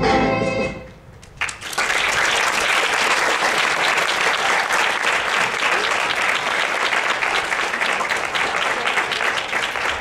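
Music fades out within the first second, and after a brief lull a small audience breaks into steady applause that tails off near the end.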